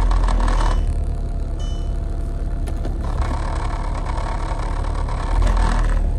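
Audi TT's turbocharged 1.8-litre four-cylinder engine running, heard from inside the cabin as a heavy, steady low drone. It is shaking the whole car through stiff new stage 2 engine mounts, and the owner wonders whether the exhaust is also hitting the frame.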